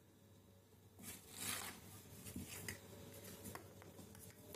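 Kittens scuffling as they play-fight, their claws scratching and rustling on a cardboard box. The loudest scrape comes about a second in, followed by scattered small scratches and taps.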